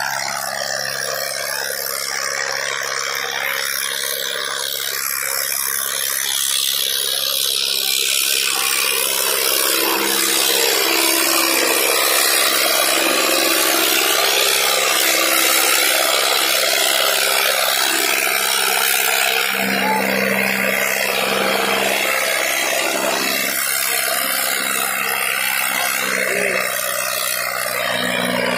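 Diesel tractor engine running steadily under heavy load while pulling two disc harrows through the soil.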